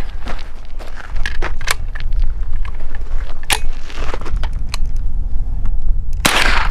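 Scattered clicks, knocks and rattles of gear being handled over a steady low rumble, with one loud sharp sound near the end.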